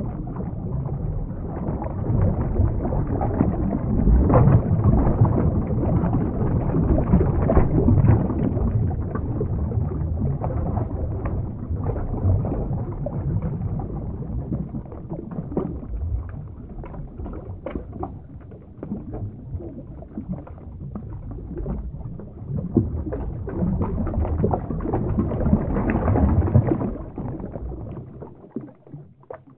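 Underwater water sound effect: a steady low wash of moving water scattered with many small bubble pops, swelling and sinking, then fading out near the end.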